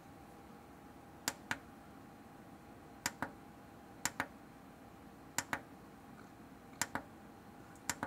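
Six pairs of sharp plastic clicks, a second or so apart, from the front-panel button of a solar inverter being pressed and released to step its LCD through its readout screens. A faint steady hum lies under them.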